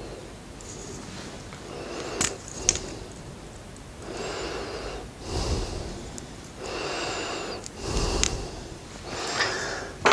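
A man breathing heavily in and out through his nose in repeated swells about a second long, with a few light clicks and rustles from a plastic pole-rig winder being handled.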